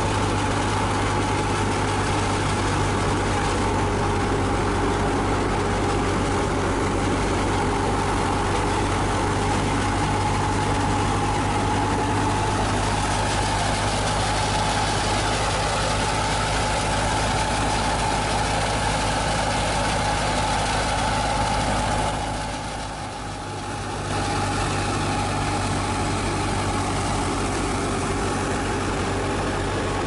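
Tractor-driven wheat thresher running steadily under load: a constant engine drone from the tractor and the thresher. It dips briefly about three quarters of the way through.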